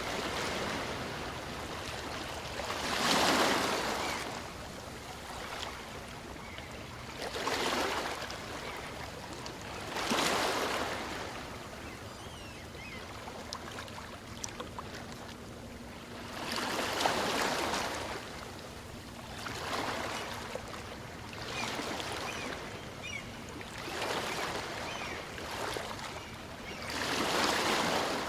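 Small waves on a calm sea breaking and washing up a beach, a steady wash of surf with a louder swell every few seconds as each wave comes in and draws back.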